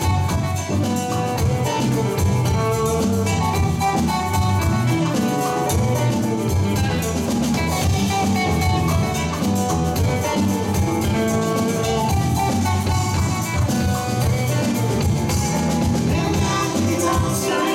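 Live roots-rock band playing: electric guitar, electric bass, keyboard and drum kit together, loud and steady.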